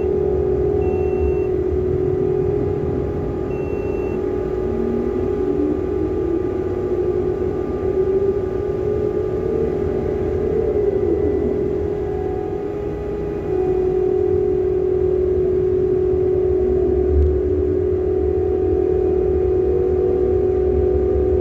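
Ship's deck crane working a coal grab: a steady machinery hum over a low rumble, with the hoist winch's whine gliding up and down in pitch as the grab is lowered and hoisted in the hold. The machinery gets a little louder about two-thirds of the way through.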